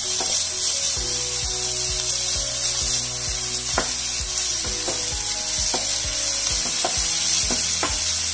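Chopped onions and ginger-garlic paste sizzling in hot oil in a frying pan, being sautéed to cook off the paste's rawness. They are stirred with a wooden spatula that knocks and scrapes against the pan about twice a second.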